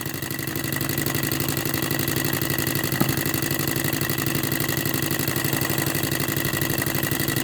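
Microcosm model Rider-Ericsson hot-air engine running steadily with a fast, even mechanical clatter. It runs too fast because its water pump is not pumping.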